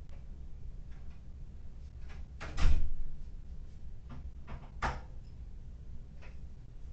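A few sharp knocks over a steady low hum, the loudest a close double knock about two and a half seconds in and another near five seconds.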